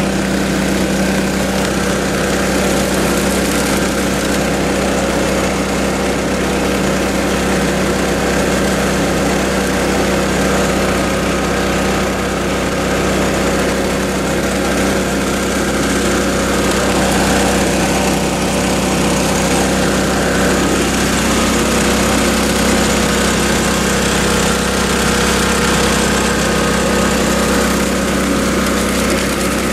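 Small gas-powered water pump engine running steadily at a constant speed, with pumped water rushing over a sluice box's riffles.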